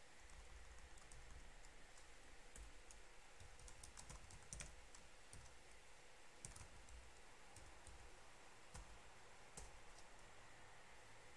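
Faint, sparse keystrokes on a computer keyboard as code is typed, with a quick run of taps about four seconds in.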